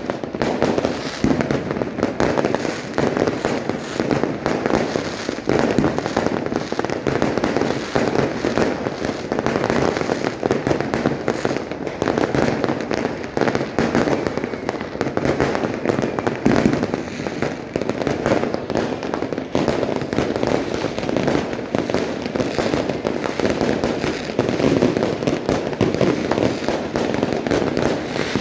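Dense, unbroken barrage of fireworks and firecrackers going off, many overlapping bangs and crackles with no pause.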